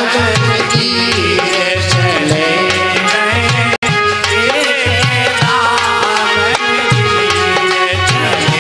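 Instrumental interlude of Indian devotional folk music: hand-drum strokes in a steady rhythm under a wavering melodic line, with the sound cutting out for an instant just under four seconds in.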